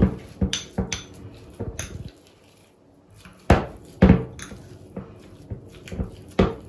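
A metal fork clinking and scraping against a small glass bowl as it mixes a thick tuna and mayonnaise paste. The taps come irregularly, with a short pause about two seconds in.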